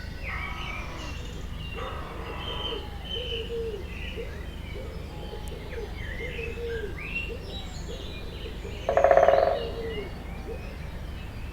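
Wild forest birds singing and chirping: many short high notes overlap with a run of lower, arching notes. About nine seconds in, a louder, lower call lasting under a second stands out, over a steady low rumble.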